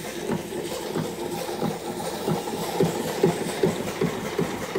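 Small horizontal steam engine running steadily, its exhaust chuffing up the stack in an even beat of about three a second.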